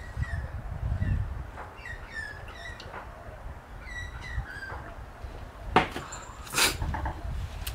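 Birds chirping in short runs of calls. Near the end a man blows out two sharp breaths through his open mouth, gasping at the burn of a habanero chilli.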